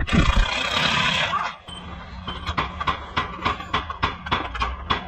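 A loud rushing hiss for about a second and a half, then a steady run of sharp taps, about four a second, from hand-tool work on a car's front wheel hub.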